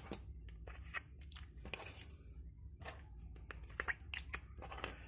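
Small clear plastic containers being picked up and set down on a tabletop: an uneven scatter of light plastic clicks and taps with soft handling noise.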